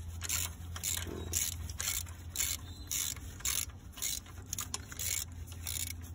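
Ratchet wrench clicking in repeated strokes, about two a second, as a bracket bolt is undone, over a steady low hum.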